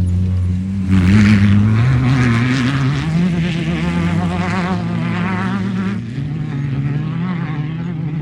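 Off-road race vehicle engine running and revving, its pitch stepping up and down.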